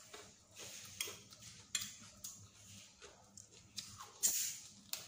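Close-miked eating sounds: chewing a mouthful of chicken rice with raw onion and cucumber, with a few sharp clicks of a metal fork against the plate. A louder click about four seconds in comes as a plastic cola bottle is picked up.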